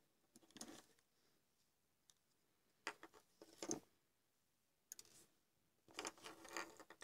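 Faint clicks and scrapes of fingers handling a small CFL ballast circuit board and its parts on a wooden tabletop, in four short bursts.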